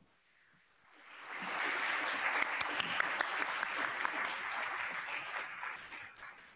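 A small audience applauding. The clapping builds up about a second in, with single claps standing out, and fades away near the end.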